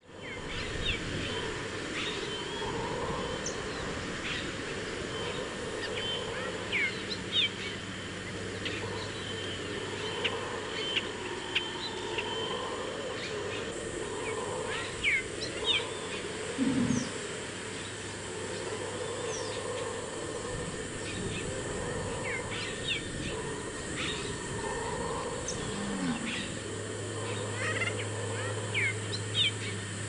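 Natural field ambience with many birds calling: short, scattered chirps and whistles over a steady background hiss. A low steady hum comes in near the end.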